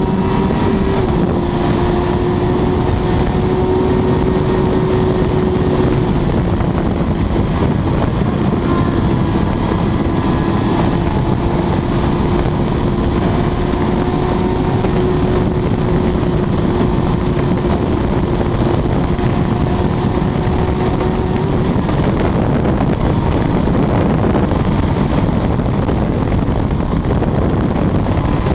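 Heavy wind rush with a steady high engine note from an inline-four sport motorcycle held at high revs at very high speed. The engine tone drops out about three quarters of the way through while the wind rush carries on.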